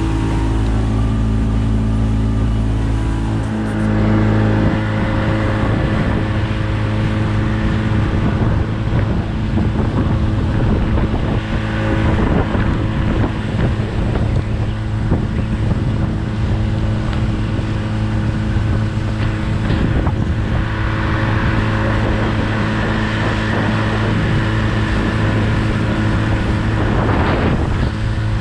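Outboard motor of a Progress aluminium motorboat running steadily under way, with wind on the microphone and rushing water. The engine's note changes about three seconds in, then holds steady.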